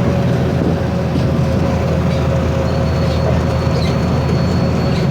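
The turbodiesel engine of a VW 17.230 EOD articulated bus running steadily under way, with the turbocharger whining ('singing') over the engine drone. A thin high whine joins in about halfway through.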